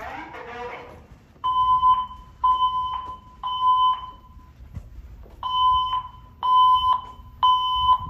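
Silent Knight voice-evacuation fire alarm speakers sounding the temporal-three evacuation tone: three half-second beeps, a pause, then three more. The tone is loud and harsh, from message players that the inspector calls terrible-sounding.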